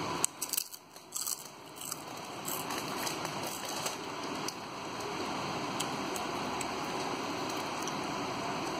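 Plastic snack packet crinkling as a toddler's hands rummage in it, with several sharp crackles in the first two seconds, then a steady hiss.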